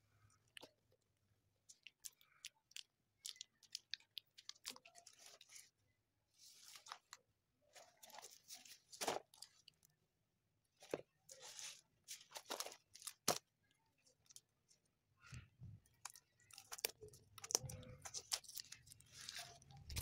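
Fingernails tapping and scratching on a cardboard carton and picking at its packing tape: a scattered series of faint short clicks and scratchy rustles, busier near the end.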